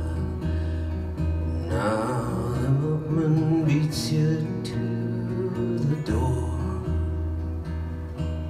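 A man singing to his own strummed acoustic guitar in a live solo performance. The voice comes in about two seconds in and stops about six seconds in, leaving the guitar playing on its own.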